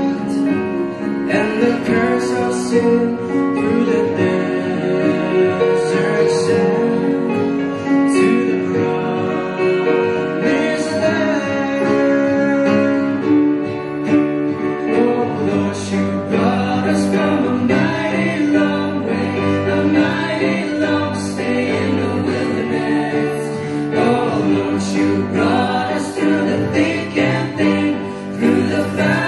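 A live gospel band: several male and female voices singing together in harmony over strummed acoustic guitars and an electronic keyboard.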